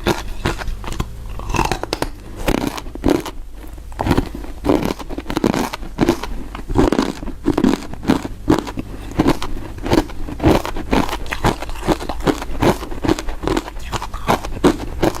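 Close-up biting and chewing of thin ice chips coated in matcha powder: rapid, crisp crunches, several a second, with a brief lull a few seconds in.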